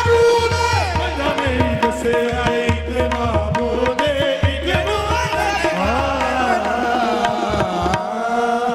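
Qawwali music: a male lead voice sings with wide ornamented pitch glides over harmoniums holding steady notes, with tabla drumming beneath. The drums stop near the end.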